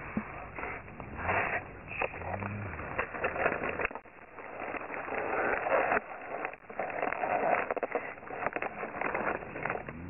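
Dry fallen leaves and twigs rustling and crackling irregularly, with camera handling noise and some low rumbling in the first few seconds.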